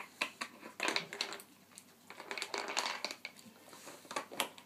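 Dog nosing and mouthing a plastic Nina Ottosson Dog Casino puzzle: irregular plastic clicks and clatter as she works the bone-shaped pieces loose and pulls one out, with a busier run of knocking about halfway through.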